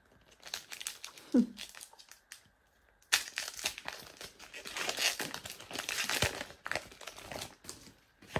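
Foil wrapper of a Pokémon trading card booster pack being torn open and crinkled by hand. There are short crackles in the first second and a half and a pause, then steady crinkling from about three seconds in.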